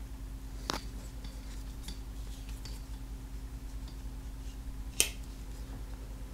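Boker slip joint pocketknife being handled, with light metallic clicks and a sharp click about five seconds in as the blade folds shut against the backspring. A steady low hum runs underneath.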